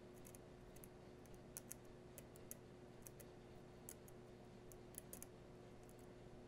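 Faint, irregular small clicks and ticks of a blade scraping and picking at the layers of a phone logic board, some coming in quick little clusters, over a steady faint hum.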